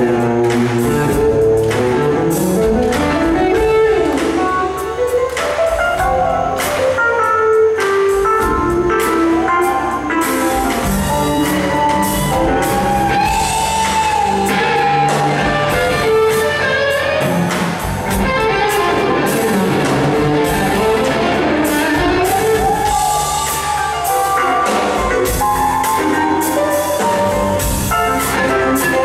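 Live rock band playing an instrumental passage: electric guitars, organ, bass guitar and drum kit, with a lead line of sliding, bending notes over the band.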